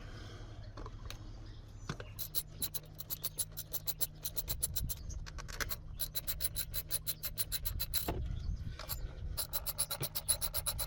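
Ratchet wrench clicking in quick, even runs of about five or six clicks a second, with short pauses between runs, as the rocker cover bolts are undone.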